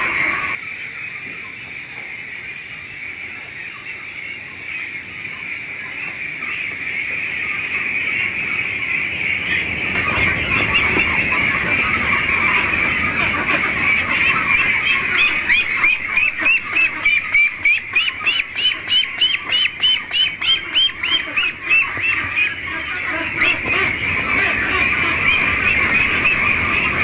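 A flock of Pekin ducks quacking together in a steady din. About halfway through, one duck close by quacks rapidly, about three quacks a second, for around six seconds.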